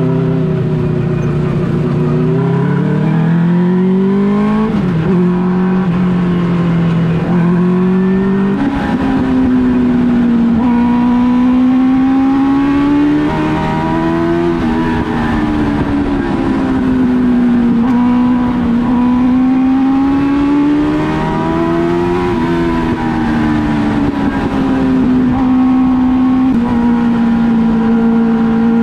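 Race car engine running hard around a tight short track, its pitch rising and falling every several seconds as it accelerates and backs off through the laps.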